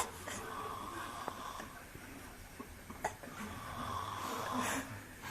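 A person snoring: a fainter snore early on and a longer, louder one over the last two seconds, with a sharp click at the very start.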